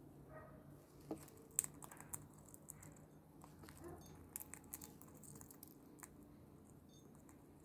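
Parrot eating: faint, irregular clicks and crunches of its beak working on food.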